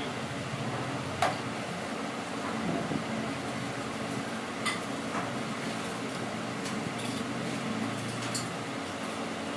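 Canteen ambience: a steady background murmur with a few sharp clinks of dishes and glasses, the loudest about a second in.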